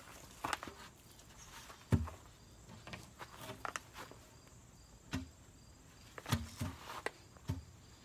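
Wooden lumber boards being handled: a few short knocks and clunks as the boards are lifted and stood on end, the loudest about two seconds in. Crickets chirp faintly in the background.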